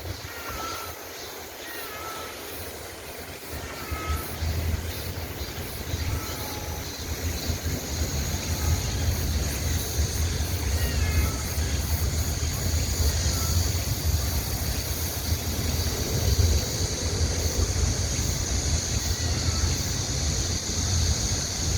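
Duckling peeping in short, repeated high calls, thinning out after the first several seconds, over a steady low rumble. A steady high hiss comes in about six seconds in.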